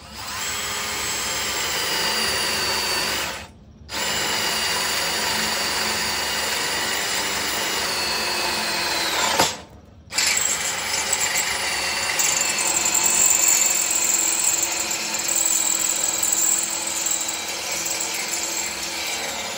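Cordless drill boring holes in steel frame tubing for rosette welds. The motor whines steadily in three runs, stopping briefly about three and a half seconds in and again near the middle. Just before the second stop there is a dip in pitch and a sharp click.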